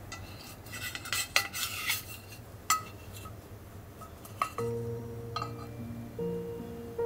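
Serving utensils clinking and scraping against a bowl and pan as curry is ladled over rice and a fried egg is lifted out, with a quick run of clinks in the first few seconds. Soft background music comes in about four and a half seconds in.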